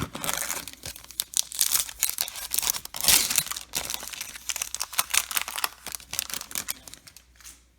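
A trading card pack wrapper being torn open and crinkled, in a dense run of crackling that is loudest about three seconds in and thins out near the end.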